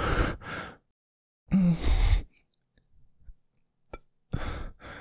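A man's heavy, panicked breaths and sighs close to the microphone, in about four bursts, one of them starting with a voiced groan, with a small click near the end. He is breathing hard in fright, believing a spider is crawling on him.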